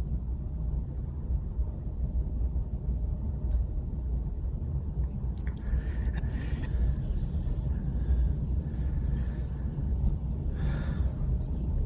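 A steady low rumble of background noise with a man's quiet breathing over it: a faint breath about six seconds in and a clearer inhale near the end.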